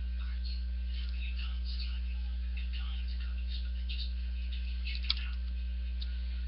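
Steady low electrical mains hum, with faint scattered clicks and rustles and one sharp click about five seconds in from a practice butterfly knife being handled and flipped.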